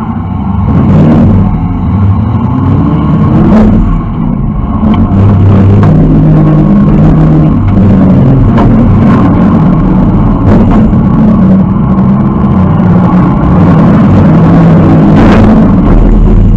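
Demolition derby car's engine running loud and revving up and down, heard from inside the stripped cabin, with several sharp bangs of collisions, the strongest about fifteen seconds in.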